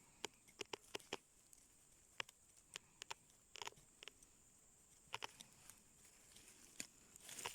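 Faint, irregular small clicks, snaps and short rustles of hands and a tool working in forest undergrowth while wild ginseng is dug out, over a faint steady high hiss.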